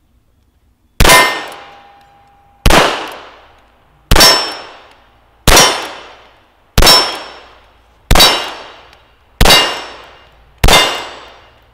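CZ vz. 38 (Model 39) .380 pistol fired eight times at a slow, even pace, about one shot every second and a half, starting about a second in. Several shots are followed by a clang of struck steel target plates ringing.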